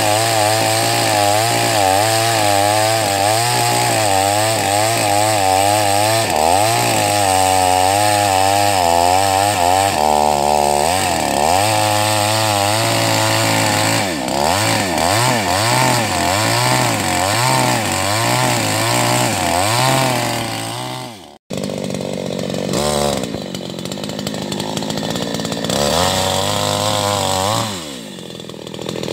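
Two-stroke chainsaw running under load while cutting into a tree trunk, its engine pitch wavering rapidly up and down as it bogs and recovers in the cut. About three-quarters of the way through the sound drops out for an instant and comes back quieter, and near the end the engine pitch falls away.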